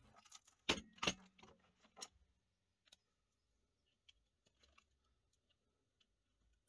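A few light clicks and knocks, the loudest about a second in, from a circuit board and a PCB holder being handled on a workbench. Faint scattered ticks follow.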